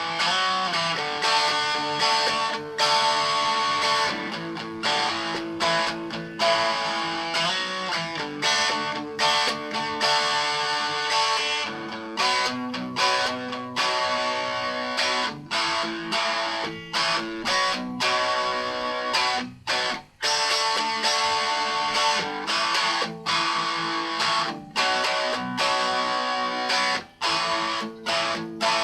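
Guitar instrumental: chords struck in a steady rhythm, with a brief break about twenty seconds in and another near the end.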